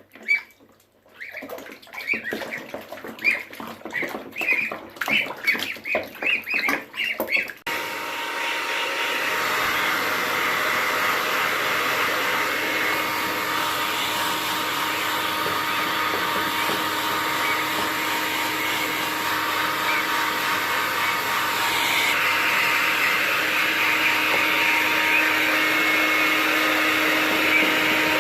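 A gosling peeps repeatedly in short calls; then, about eight seconds in, a hair dryer switches on suddenly and runs steadily.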